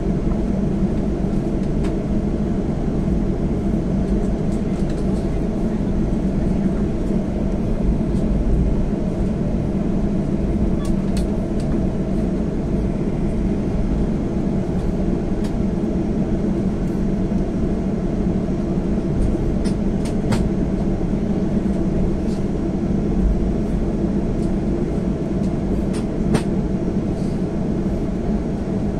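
Airliner cabin noise while taxiing: a steady low rumble of the jet engines at taxi power and the aircraft rolling along the taxiway, with a few faint clicks.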